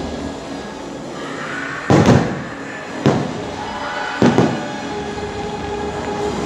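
Fireworks shells bursting in loud booms over the show music: two booms close together about two seconds in, then single booms about three and four seconds in, each trailing off in a rumble.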